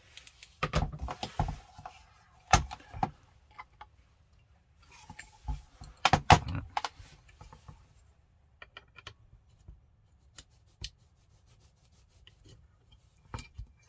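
Clicks, knocks and rubbing of metal and polymer parts as a Wolverine MTW airsoft rifle's lower receiver is handled and a small pin tool is worked against the pins that hold its fire-control board. The handling comes in short clusters, louder about a second in, at two and a half seconds and around six seconds, with sparse single clicks after.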